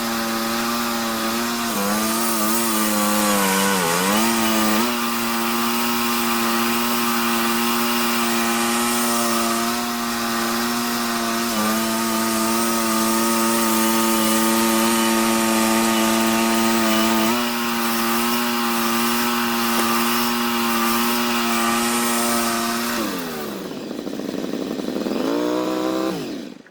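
Wood-Mizer LT15 Go band sawmill running at high speed, its engine note dipping briefly twice early on as it takes load in the cut, then holding steady. Near the end the pitch falls steeply as the mill winds down.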